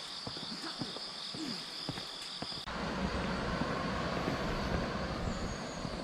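Footsteps on a trail over a steady high insect drone. About two and a half seconds in, the sound switches abruptly to a steady rushing noise with a low rumble.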